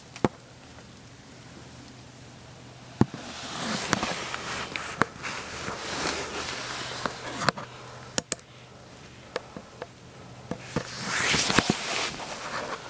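A person crawling through a crawl space: rustling and scraping against the ground in two stretches, with a dozen or so sharp knocks and taps scattered throughout.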